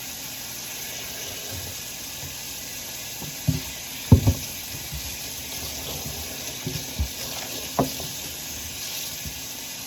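Water running from a kitchen tap into a sink, with a few short knocks of dishes and utensils being handled in the middle, the loudest a double knock about four seconds in.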